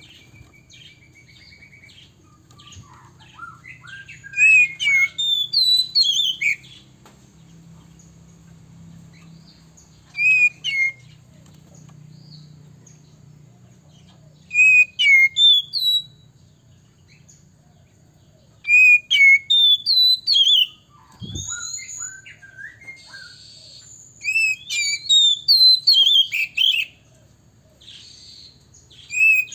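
Male oriental magpie-robin singing: loud, varied whistled phrases of swooping notes in five bouts of one to three seconds, separated by pauses of a few seconds.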